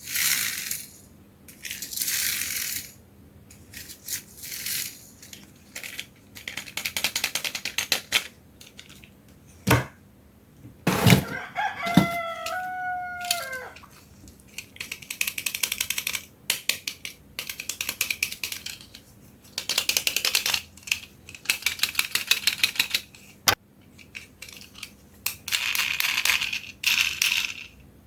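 Small plastic toy cars rolling and clattering down a plastic slide track in repeated rattling runs, with clicks between them. A rooster crows once about midway.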